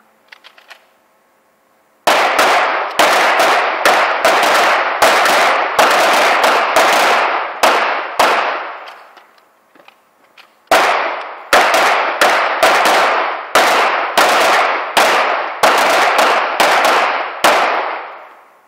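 Handgun shots from several shooters on a firing line: a rapid string of about a dozen shots, some close together, starting about two seconds in, each shot with a short echo. After a pause of about two seconds comes a second string of about a dozen shots.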